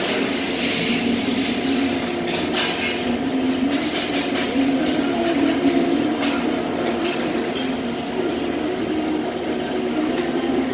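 Steady hum of a running hydraulic press brake, with a few light metal clinks scattered through it.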